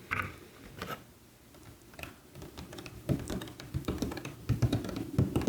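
Keys of a LEOBOG Hi75 mechanical keyboard with Nimbus V3 switches being pressed through its soft plastic cover, giving muffled, thocky taps. A few light clicks come first, then a quick run of presses from about halfway in.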